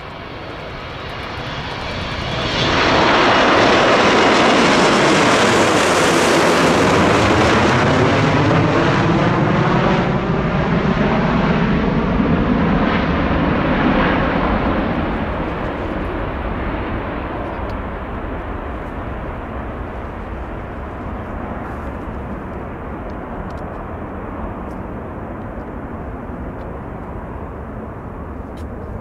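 Boeing 727's three rear-mounted Pratt & Whitney JT8D turbofans at takeoff power as the jet lifts off and climbs out. The jet noise swells sharply about two seconds in and stays loud with a sweeping, phasing quality as the aircraft passes. It then fades slowly as the jet climbs away.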